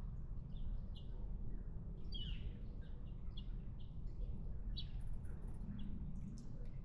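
Small birds chirping: many short, high chirps scattered irregularly, over a steady low rumble.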